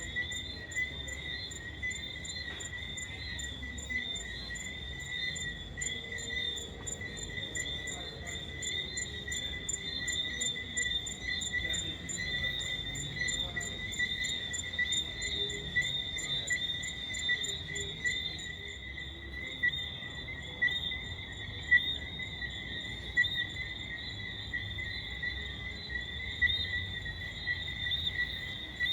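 Crickets chirping in a steady, continuous night chorus, with a few brief louder sounds over it.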